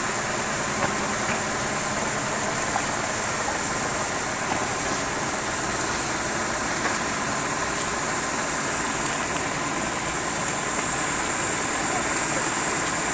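An engine idling steadily, with a few small knocks on top.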